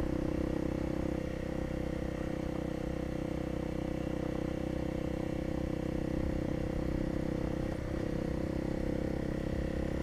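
Single-cylinder dual-sport motorcycle engine running at a steady pitch while cruising.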